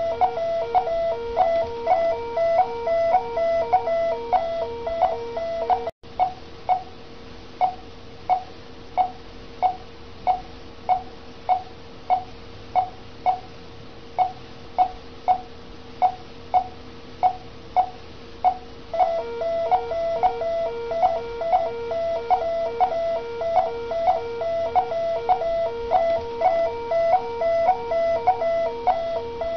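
Bedside patient monitor beeping with each pulse, about one and a half beeps a second. A continuous pulsing alarm tone sounds over the beeps, stops about six seconds in and comes back about 19 seconds in.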